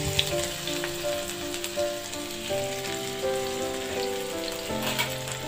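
Chopped onions sizzling and crackling in hot oil in a non-stick frying pan, just after going in and not being stirred. Background music with held notes plays underneath.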